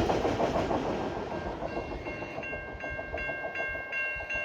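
Freight train rolling past a level crossing, wheels clattering over the rails, its rumble fading as the last cars go by. A crossing warning bell rings over it in quick, even strokes, coming through clearly from about halfway on.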